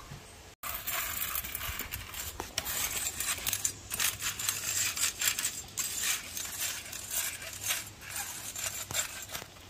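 Cooking utensils and cookware clinking and clattering: a run of short, irregular light clinks.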